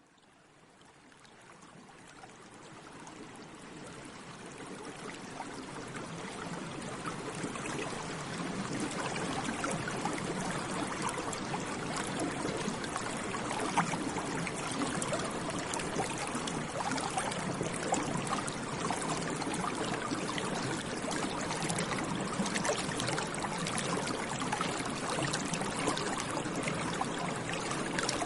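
A stream of running water flowing and splashing in many small ripples, fading in over the first several seconds and then steady.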